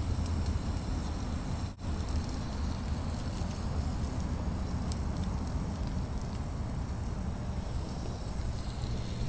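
Small tin-can rocket stove burning fat wood: a steady low rumble of fire with a few faint crackles. The sound cuts out briefly just under two seconds in.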